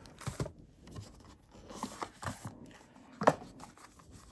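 Hands handling a cardboard box and its paper and plastic-film packaging: soft rustling and a few light taps, with one sharper click a little over three seconds in.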